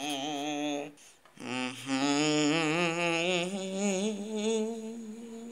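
A person's voice holding long, wavering tones with vibrato, a hummed or wailed vocalisation for a toy rhinoceros: a short tone, a brief break about a second in, then one long tone of about four seconds.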